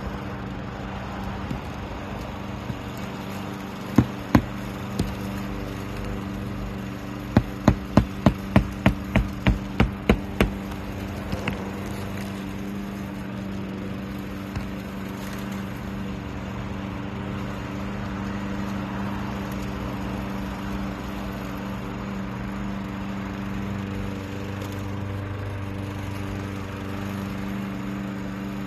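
Hammer driving roofing nails into a shingle: two strikes about four seconds in, then a run of about ten quick, evenly spaced strikes. A steady mechanical hum runs underneath.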